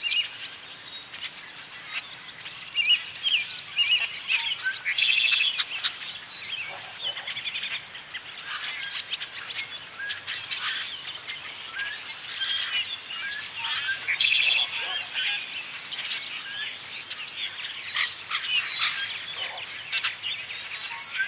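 Dense chorus of many birds calling and singing at once: common grackles, red-winged blackbirds, American robins and swallows. Many short chirps, trills and buzzy calls overlap with no break.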